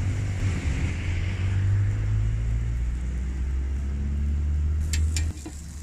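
Car engine running with a deep, low rumble, its pitch shifting slightly as it goes; it drops away near the end. A few sharp clicks come just before it drops.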